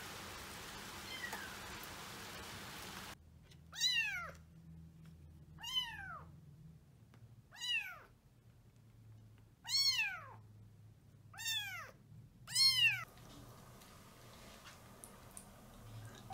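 Rain falling steadily for about three seconds, then a young calico kitten mewing six times, about two seconds apart, each call rising and then falling in pitch.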